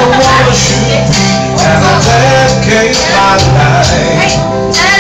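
Karaoke backing music playing loud, with a man singing into a microphone over it.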